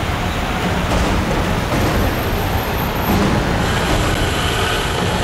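Steady road traffic and vehicle noise, an even rumbling din with no single event standing out.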